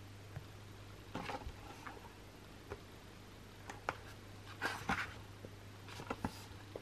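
Glossy pages of a CD album's photobook being turned by hand: several short paper rustles and flicks, the loudest about five seconds in, over a faint steady hum.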